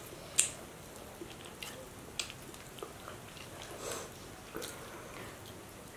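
Eating sounds: crisp fried fish being pulled apart by hand and chewed, a scatter of small crackles and clicks, the sharpest about half a second in.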